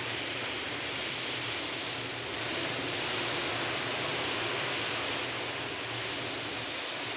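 Steady rush of sea and wind heard from the deck of a ship under way, with a faint low hum beneath it.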